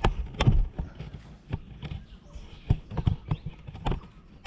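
A string of irregular knocks and taps close to the microphone, the loudest about half a second in and a few more spread through the rest.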